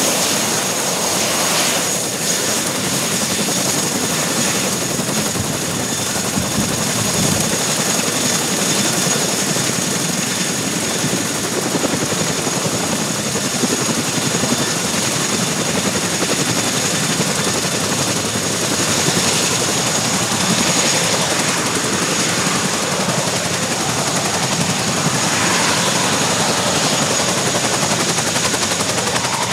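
Boeing CH-47 Chinook helicopter's tandem rotors and twin turboshaft engines running at ground power while it taxis. Loud, steady rotor noise with a thin, steady high turbine whine over it.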